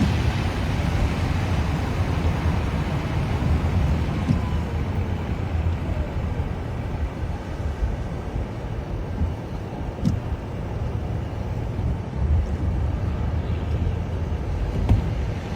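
Steady low rumbling wind noise mixed with vehicle noise, with a sharp click about ten seconds in and another near the end.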